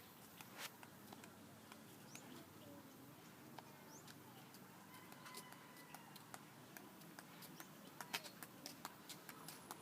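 Near silence: faint background with scattered small clicks and a few brief high chirps.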